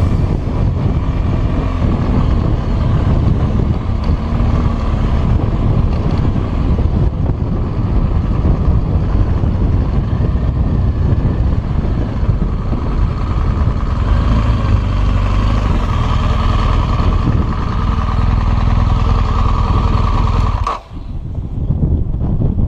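BMW R1200GS boxer-twin motorcycle running off-road, its engine and ride noise mixed with heavy wind rumble on the microphone. The sound breaks off abruptly about 21 seconds in and then comes back.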